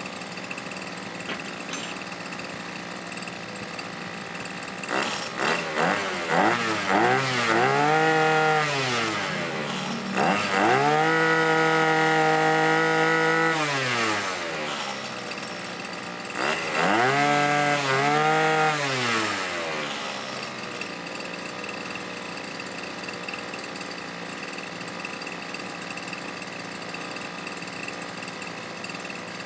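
Brush cutter engine idling, then revved: a few quick throttle blips, then held at high revs for a few seconds, revved up again, and dropped back to a steady idle for the last third.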